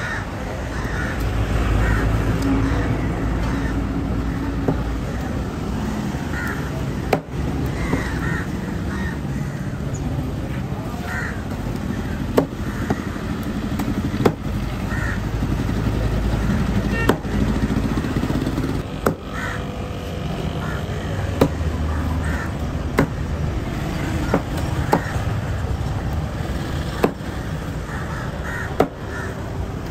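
Crows cawing repeatedly over a steady low street rumble, with sharp knocks of a large knife chopping through tuna onto a wooden cutting block every second or two.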